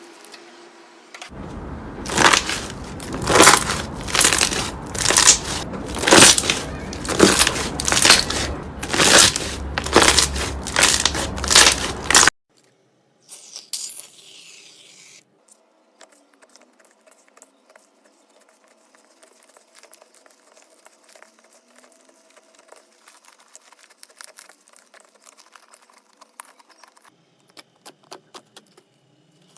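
Slime being pressed and kneaded in loud, rhythmic squishing strokes about once a second, which cut off suddenly after about ten seconds. A short hissing sound follows, then faint crackling and popping clicks of slime being stretched.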